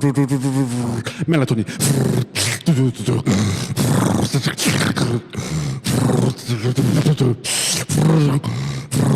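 Beatboxing built from snoring sounds: a held pitched hum for under a second, then a fast run of short vocal snores, hits and hisses.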